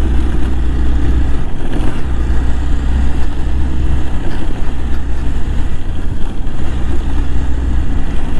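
Motorcycle engine running with a steady low drone as the bike is ridden along a rough, potholed dirt road; the drone drops away briefly a few times.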